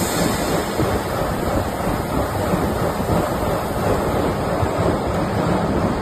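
Steady, loud rushing noise with a fine crackle, from the welding of an electric motor stator.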